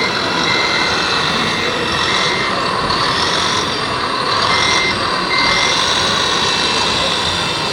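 Reversing alarm beeping from an RC construction truck model, short single-pitch beeps a little under a second apart that pause for about two seconds midway and then sound twice more, over steady machine noise with a wavering whine.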